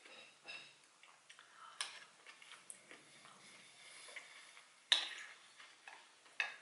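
Wooden spoon clicking and scraping against a ceramic bowl while scooping rice and salad, a few sharp taps with the loudest about five seconds in, with soft chewing between.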